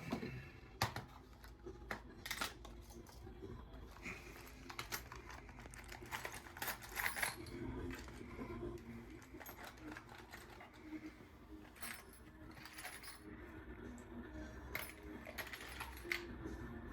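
Small metal driver bits clicking and clinking, in irregular light taps, as they are handled and sorted to find a number 8 square bit.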